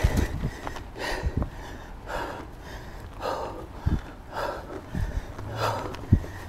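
Mountain biker breathing hard in a steady rhythm, a breath about every second, while pedalling uphill, with a few short low thumps from the bike and camera jolting over the trail.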